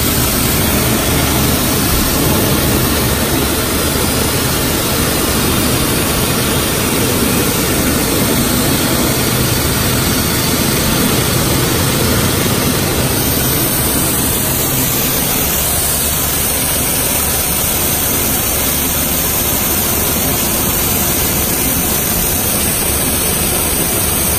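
High-pressure washer jet spraying water onto and through a K&N performance air filter held in the hand: a loud, steady rushing hiss of spray that starts abruptly and holds throughout.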